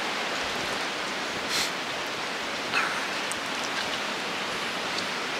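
Steady rushing of moving water, an even hiss with no rhythm.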